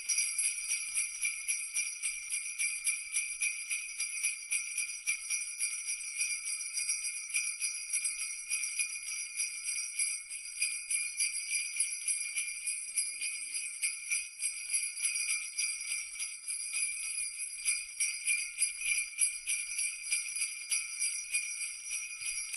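Sleigh bells shaking without pause, a dense, bright, steady jingling that cuts off suddenly.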